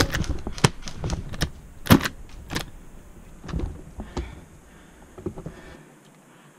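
Mark 23 airsoft pistol in the suppressed SSX-23 carbine kit firing single shots: a run of sharp, quiet clacks about every half second for the first two and a half seconds, then a few fainter, sparser ones.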